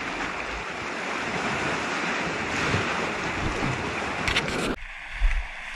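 Sea surf washing over shoreline rocks: a steady, loud hiss of breaking water that cuts off abruptly near the end, leaving a quieter stretch with low bumps on the microphone.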